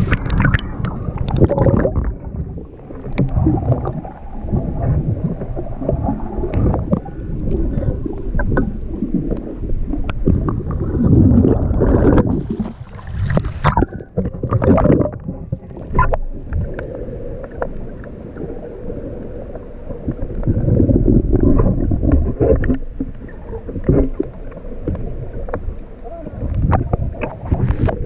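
Water sloshing and lapping against a GoPro's waterproof housing as it bobs in and out of the surface: a muffled, uneven churning that swells and fades, with small knocks against the case.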